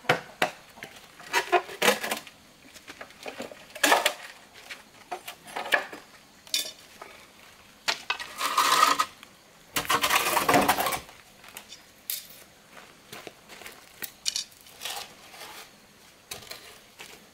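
A metal blade working hollow bamboo tubes: scattered sharp knocks and clinks, with two longer scraping strokes around the middle.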